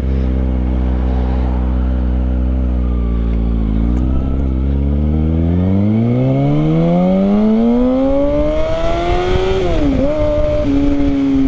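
Kawasaki ZX-6R inline-four sport bike engine through an aftermarket M4 exhaust, idling steadily and then revved in one slow, smooth climb that dips briefly and is held at a steady higher rpm near the end.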